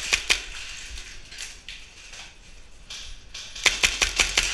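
Airsoft guns firing: sharp snapping shots, two close together at the start and two more about a second later, then a quick string of shots near the end.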